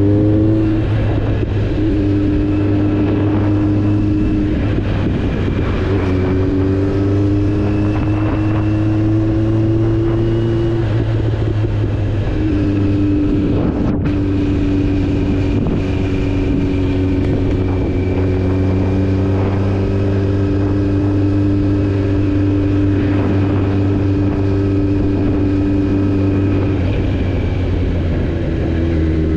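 Kawasaki Z900 inline-four motorcycle engine running on the move at fairly steady revs. The pitch drops just after the start and shifts again about eleven seconds in and near the end.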